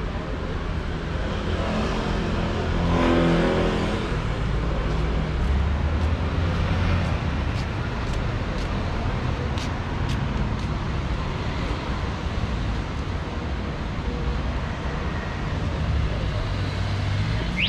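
Street traffic: motor vehicles running close by over a steady low rumble, with one car passing loudest about three seconds in.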